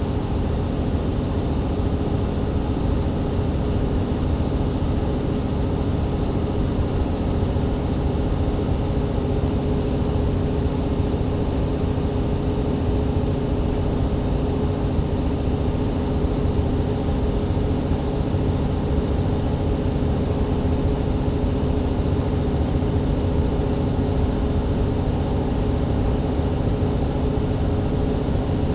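Mercedes-Benz Citaro C2 hybrid bus's diesel engine and Voith automatic transmission running at a steady cruise, heard from inside the passenger cabin: an even engine drone with a low rumble and no change in pitch.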